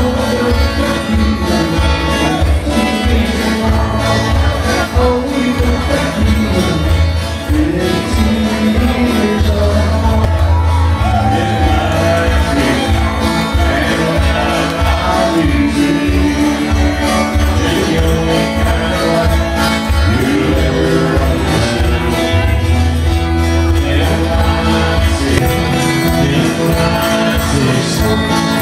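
Live band playing country-style dance music over PA speakers, with guitar, a singer and a steady beat.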